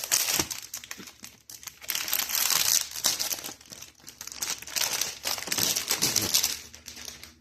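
Packaging and paper crinkling and rustling as board game components are handled, coming and going several times.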